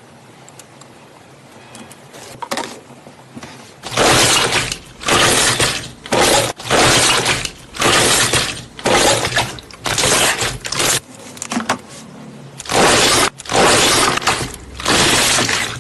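Slime being squeezed and pressed by hand: after a few quiet seconds, a string of loud, noisy squishing presses, about one a second, with a short pause about two-thirds of the way through.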